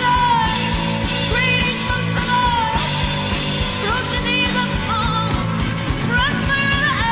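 Live rock band playing: a steady drum beat under bass and distorted electric guitars, with high gliding notes over the top.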